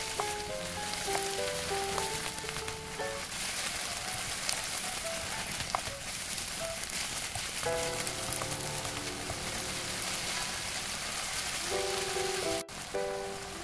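Pork belly, bean sprouts and vegetables sizzling in a non-stick frying pan as they are stir-fried with a wooden spatula. Light background music plays over it and drops out for a few seconds in the middle.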